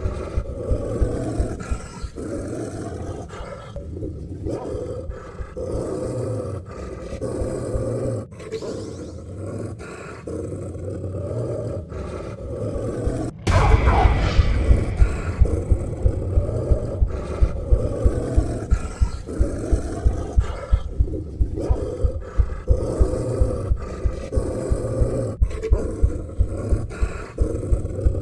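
A person burping at length, one long, rough, low burp after another. About halfway through it suddenly gets louder and pulses rapidly, about two to three beats a second.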